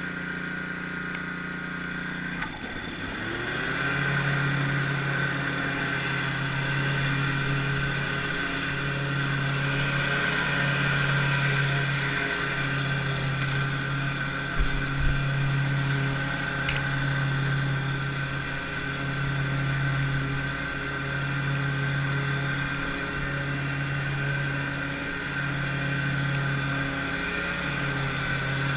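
Commercial walk-behind lawn mower engine running steadily, its pitch dropping and settling about two to three seconds in.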